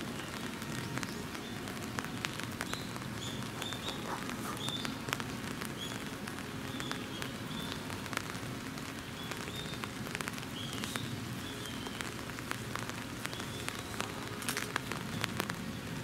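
Steady patter of rain with many sharp drip ticks. Short, high, faint chirps of a small bird repeat on and off through the middle, and the kookaburra is not calling.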